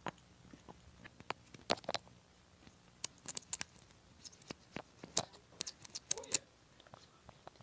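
Small plastic containers handled over slime: scattered sharp clicks and taps of caps and a clear plastic tube, with grains of glitter pattering down. The clicks come in two busy clusters, one about three seconds in and one about five to six seconds in.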